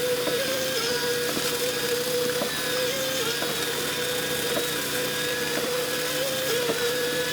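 A machine's engine or motor running steadily at one pitch, dipping slightly now and then, with light knocks about once a second.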